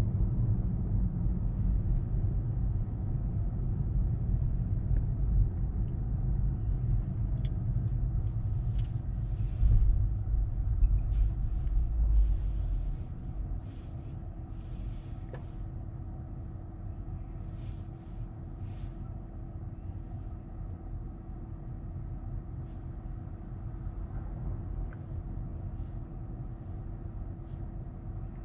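Steady low vehicle rumble with a faint hum, heavier at first and easing off about 13 seconds in, with short hissing sounds in the middle.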